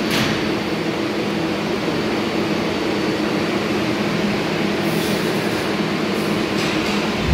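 R142A subway train pulling out of the station, its motors and wheels running steadily as it gets moving.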